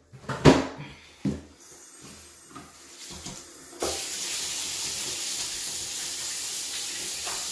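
A few short knocks, then about four seconds in a sink tap is turned on and water runs steadily from it for hand-washing.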